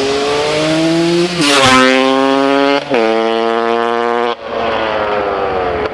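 KTM EXC 300 single-cylinder two-stroke with an FMF Shorty silencer, accelerating hard. The pitch climbs through the gears with quick drops at the shifts; a short dip comes a little after four seconds in, and the pitch then falls slowly.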